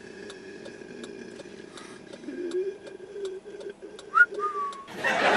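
Regular soft ticking, about two a second, under a faint steady hum inside a car. About four seconds in, a short whistle rises sharply and then holds one note for about half a second. Loud chatter cuts in right at the end.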